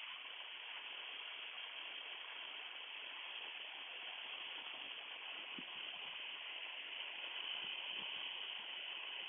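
Steady hiss of a Piper Comanche 250's cabin noise in flight, from the engine, propeller and slipstream, with almost no low rumble.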